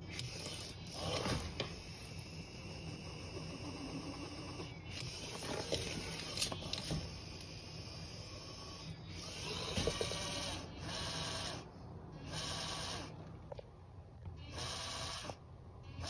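Plastic bag crinkling and rustling in repeated short bursts, with a few light clicks, as something stirs inside it.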